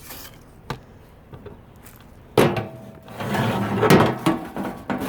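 Aluminum tray being handled: a single click about a second in, then from about halfway a run of knocks and clatter, with brief ringing from the metal.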